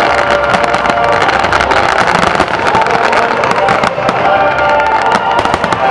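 A fireworks barrage: many aerial shells bursting and crackling in quick succession, with music playing underneath.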